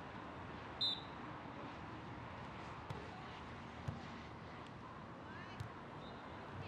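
Low, steady background noise of a beach volleyball venue: distant crowd and outdoor sound. A short, high whistle-like tone about a second in, and a couple of faint knocks later.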